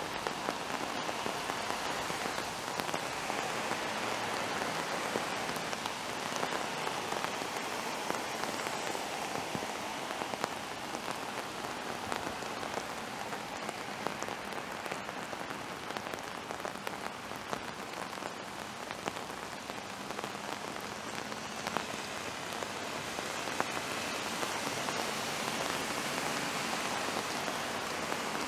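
Steady rain falling, an even hiss of rain with many individual drops ticking close by.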